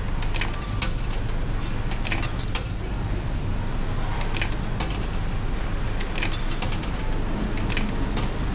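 Coins fed one after another into a vending machine's coin slot, clicking and rattling as they drop through the coin mechanism, some in quick runs. A steady low hum runs underneath.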